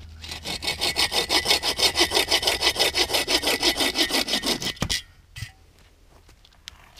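Hand bow saw cutting through a dry poplar branch with rapid, even back-and-forth strokes, stopping abruptly about five seconds in as the cut goes through. A light knock follows just after.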